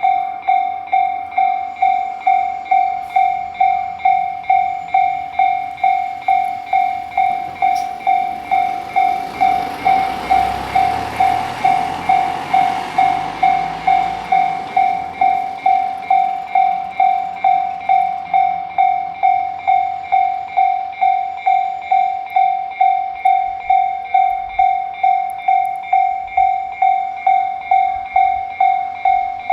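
Japanese level-crossing alarm ringing its electronic "kan-kan" tone in evenly spaced strikes. A train passes through about a third of the way in, its wheels and running gear rumbling for several seconds and then fading, while the alarm keeps ringing.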